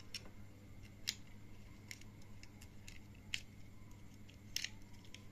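A handful of irregular, sharp plastic clicks and snaps as a small black plastic toy launcher is handled and its parts fitted together, the loudest near the end, over a faint steady hum.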